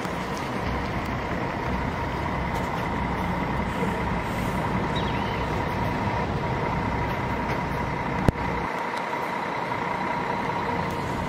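Double-decker coach engine running as the bus rolls slowly across a lot, with a steady whine over it. A single sharp click about eight seconds in.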